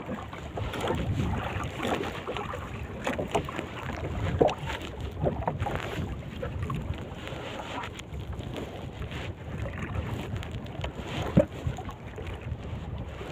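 Water lapping and splashing around a small wooden fishing boat, with scattered short knocks and splashes against the hull and wind on the microphone.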